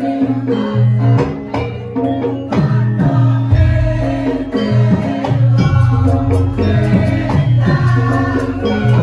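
Live Javanese gamelan music accompanying a Lengger dance, with a voice singing over sustained pitched notes; a deep bass note comes in about three and a half seconds in.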